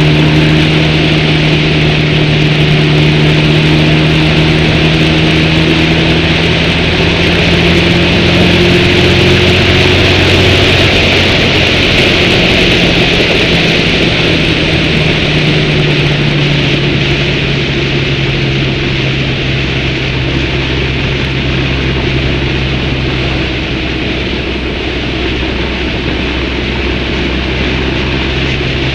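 Motorcycle engine running steadily at cruising speed, heard from a camera mounted on the bike, under a loud, even rush of wind and road noise.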